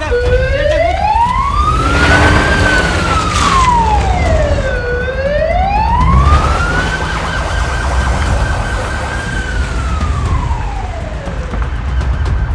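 A wailing siren sweeping slowly up and down in pitch, each rise and fall taking several seconds. Midway it holds at its top pitch for a couple of seconds before falling again. A low steady rumble runs underneath.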